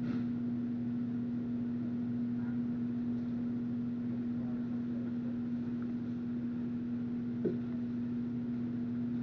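Steady low hum over a hiss, holding one pitch throughout, with one brief knock about seven and a half seconds in.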